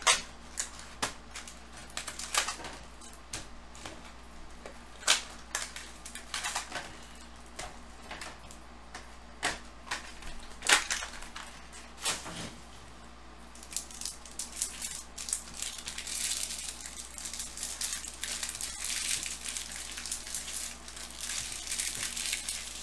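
Baseball card packs handled out of a Bowman Chrome hobby box: scattered sharp crackles and taps as the packs are pulled out and set down in stacks. From about halfway in comes a steady dense crinkling as the pack wrappers are torn open.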